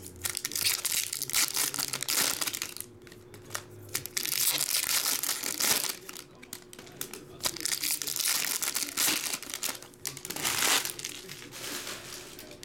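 Foil trading-card pack wrappers being torn open and crumpled by hand, crinkling in irregular bursts with short pauses between them.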